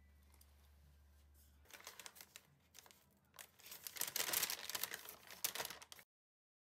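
Paper Mister Donut takeaway bag being unfolded and opened by hand, the paper crinkling and rustling in short spells, loudest in the second half, then cutting off suddenly.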